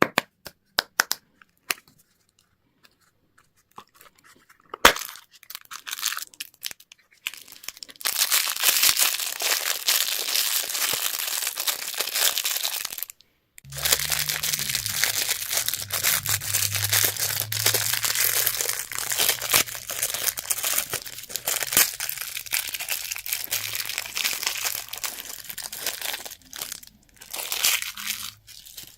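Plastic candy or toy wrapping being handled and torn open: a few scattered crinkles and clicks at first, then long spells of dense crinkling and tearing with a short break in the middle. A low hum runs underneath the second half.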